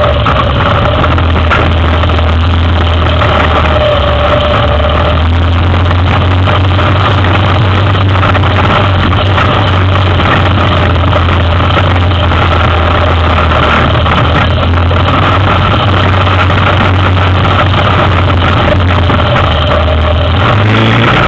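Yamaha Big Bear 400 ATV's single-cylinder four-stroke engine running at a steady, even pitch as the quad wades through a shallow creek, water churning around the wheels. The engine note shifts slightly upward near the end.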